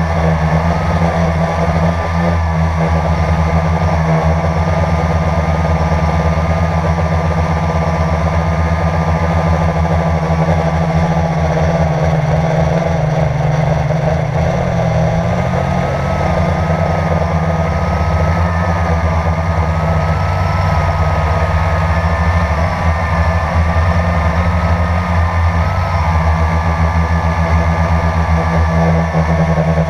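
Quadcopter drone's electric motors and propellers whirring, heard close from the camera mounted on the drone: a steady high whine that wavers slightly in pitch over a strong low hum.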